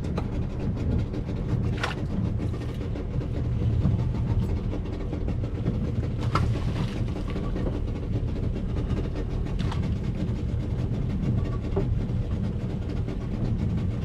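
Small boat engine running steadily at a low, even hum, with a few short knocks over it.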